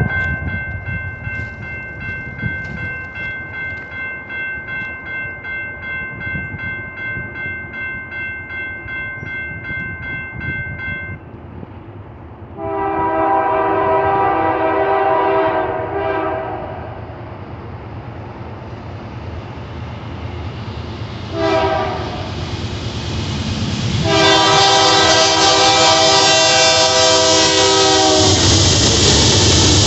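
A bell rings steadily with a regular pulse for about the first ten seconds, then stops. The horn of an approaching freight train led by BNSF GE C44-9W diesel locomotives sounds a long blast, a short toot and another long blast. Near the end the locomotives' engines rumble loudly as they pass close by.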